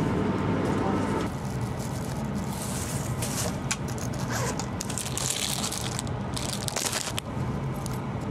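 Plastic wrapping and bags crinkling in irregular bursts as packages are handled, over the steady low hum of a train interior.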